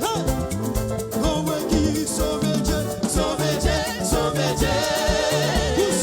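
Live gospel worship music: a band with bass and drums playing steadily, with a voice singing over it.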